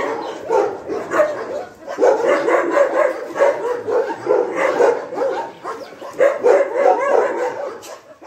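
Dog barking and yapping in a rapid, continuous run of short calls, several a second, with a brief lull about two seconds in.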